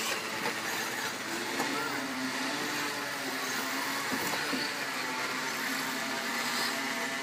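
Several 1/8-scale radio-controlled off-road buggies racing around a dirt track, their motors making a steady mixed whir.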